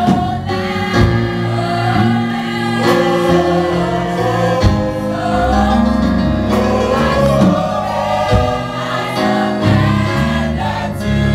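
Mixed choir of men and women singing a gospel worship song, with a young man leading on a handheld microphone.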